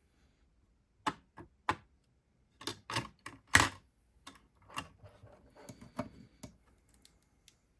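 Hands handling the parts of an HP EliteDesk 800 G5 desktop computer during a CPU upgrade: a string of sharp clicks and taps, the loudest about halfway, followed by lighter, quicker clicking.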